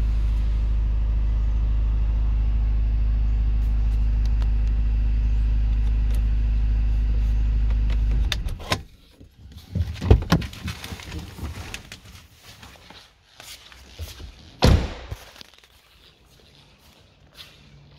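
BMW 520d's four-cylinder diesel engine idling steadily, heard from inside the cabin, then switched off and stopping abruptly about eight seconds in. A few sharp knocks and thuds of the car's door follow, the loudest about two-thirds of the way through.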